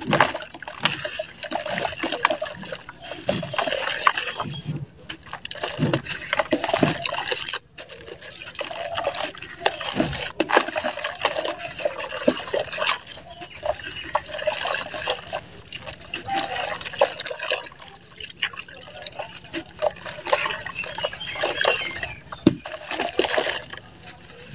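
Dry lumps of red dirt crumbled by hand into a tub of water: an irregular run of gritty crunching and crackling, with grit trickling and small chunks splashing into the water. There is a brief lull about eight seconds in.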